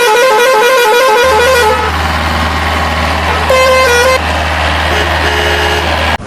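A vehicle horn sounds a wavering tune that steps up and down, then a steady low engine hum runs under it with two short horn honks near the middle and end.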